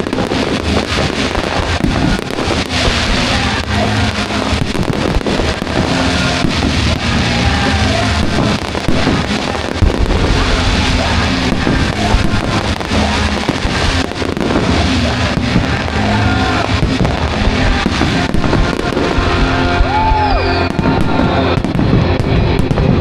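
Fireworks bursting and crackling in quick succession over loud music, with a short whistling glide about twenty seconds in.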